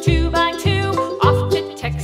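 Cheerful children's background music: a bright melody over a steady bass beat.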